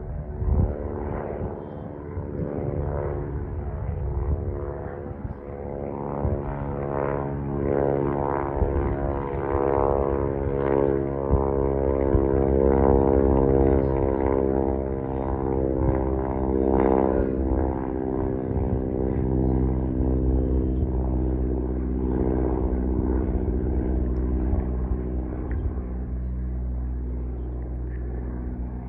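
Small single-engine propeller airplane climbing out after takeoff, its piston engine and propeller droning steadily. The drone grows louder toward the middle as it passes, then eases off.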